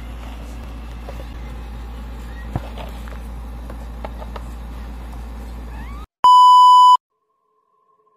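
A steady low hum and hiss with a few faint clicks, then about six seconds in a loud electronic beep: one high steady tone held for just under a second that cuts off abruptly into silence.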